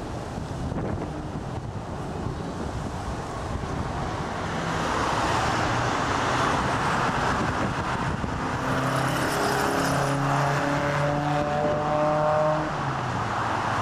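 Boeing 747 jet engines on the landing roll: a broad rushing noise that swells about four seconds in, with a whine that climbs in pitch over the next few seconds, then cuts off suddenly near the end. Wind buffets the microphone at first.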